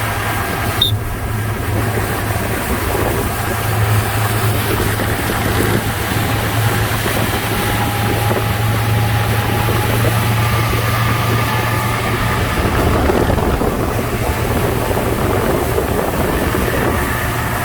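A motorboat engine running steadily with a constant low hum, under wind buffeting the microphone and rushing water.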